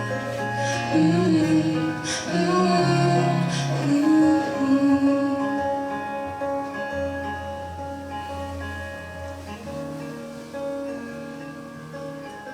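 Live band closing out a song: a sung phrase over guitar in the first few seconds, then held chords that slowly fade away.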